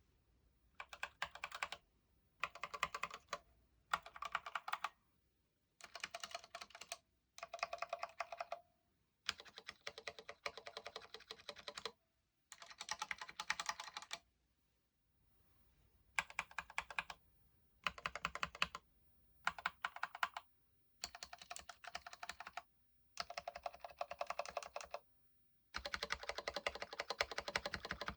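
Stabilized keys on an Actto B703 mini mechanical keyboard with Gateron Brown tactile switches, pressed in quick bursts of clacks with short pauses between. In the first half the stabilizers are stock and a light ringing tone sits under the bursts; about halfway through the stabilizers are lubed with synthetic grease and the ringing drops away.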